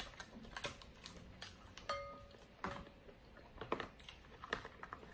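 Irregular small clicks and crackles of a boiled king crab leg being handled and its meat pulled from the split shell by hand, with close-miked eating.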